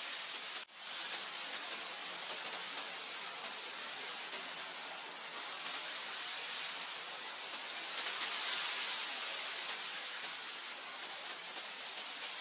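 Wind blowing over grassland, a steady airy hiss that swells gently about six and eight seconds in. The sound drops out for a split second just under a second in.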